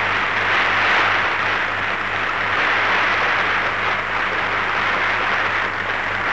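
Sustained applause from a large audience, heard as a dense hiss on an old archival film sound recording with a steady low hum underneath.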